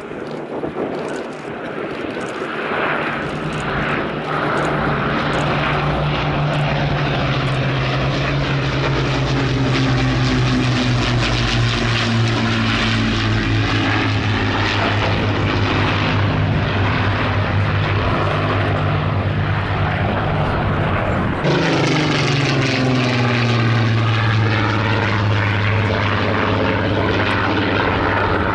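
Avro Lancaster's four Rolls-Royce Merlin piston engines, with a Hawker Hurricane alongside, droning in a low flypast; the sound builds over the first few seconds. About two-thirds through the sound changes abruptly, and a single-engine propeller fighter passes with its engine pitch falling.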